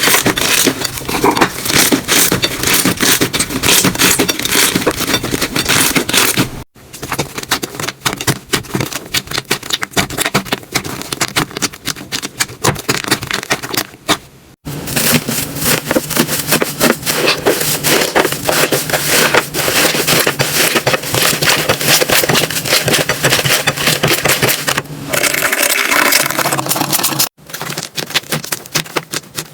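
Slime being squished, poked and stretched by hand: dense wet crackling and clicking, cut off abruptly three times as one clip gives way to the next.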